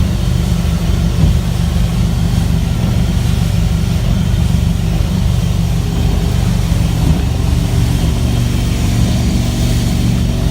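Boat's sterndrive engine idling steadily, a low even drone.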